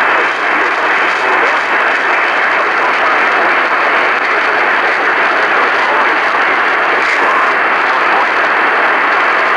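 Radio static: a steady, muffled hiss from a radio receiver with no clear signal coming through.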